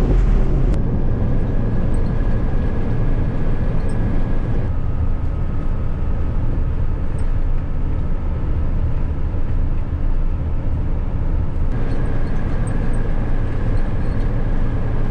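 Hino FG truck's diesel engine and road noise on the move: a steady low drone with a faint, even whine.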